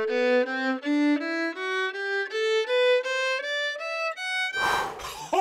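Background music: a single melodic instrument playing sustained notes that climb step by step in pitch, about three notes a second. Near the end the run breaks off into a short burst of noise.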